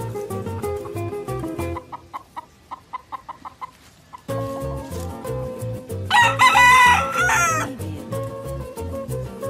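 A gamecock rooster crows once, loudly, for about a second and a half, starting about six seconds in. Music with a steady beat plays underneath throughout.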